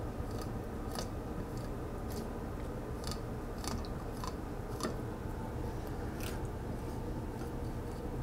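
Fillet knife cutting along a burbot's backbone and rib bones, with scattered sharp clicks, roughly one a second, as the blade ticks over the bones.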